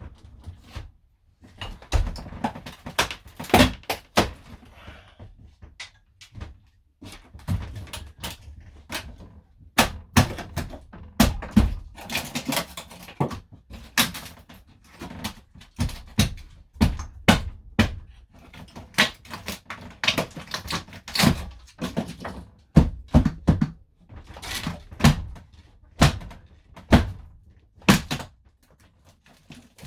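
Irregular knocks, bangs and scrapes of fittings being stripped out of an old camper van's interior, with blows sometimes coming in quick clusters.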